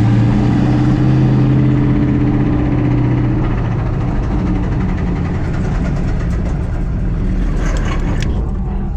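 2007 Ford Mustang engine running, heard from inside the cabin: a steady drone that breaks up about three and a half seconds in into rougher, uneven running, with a few sharp clicks near the end. The engine is running on low oil pressure, shortly before it bogs out and locks up.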